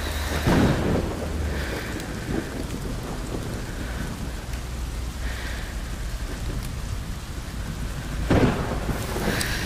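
Steady rain falling on the woodland vegetation, heard as an even hiss, with a louder low rumble about half a second in and again near the end.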